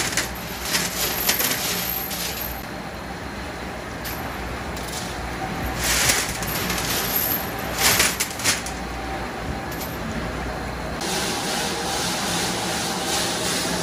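Small steel screws clattering and jingling against each other and a metal tray as they are scooped and swept into a basket by a gloved hand, with louder rushes of clatter twice near the middle, over a steady low machine hum. About eleven seconds in, the clatter gives way to a steadier hiss.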